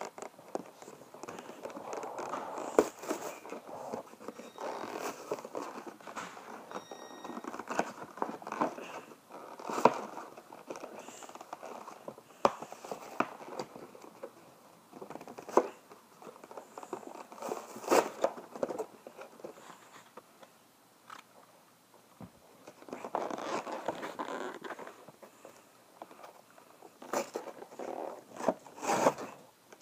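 Plastic toy packaging being crinkled and torn open by hand: irregular crackles and rustles, with a quieter lull a little past the middle.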